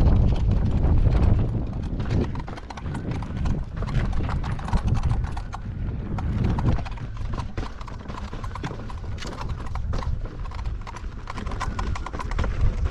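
KingSong S22 electric unicycle riding a dirt trail: wind rumbling on the microphone under a quick, irregular run of clicks and knocks from the wheel and suspension over the bumps.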